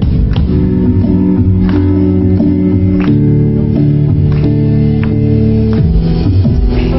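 Live band playing an instrumental passage: sustained chords over a steady beat of drum hits, the chord changing about three seconds in and again near the end.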